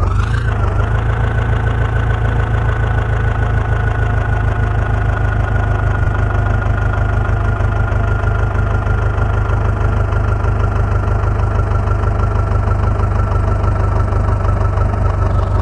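Heavy diesel engine running steadily, a deep low rumble with a steady high whine over it.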